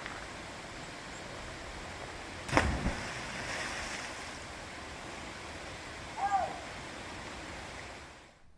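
Steady rushing of river water over rapids and falls, with one sharp knock about two and a half seconds in and a short squeak a little past six seconds; the water sound drops away suddenly near the end.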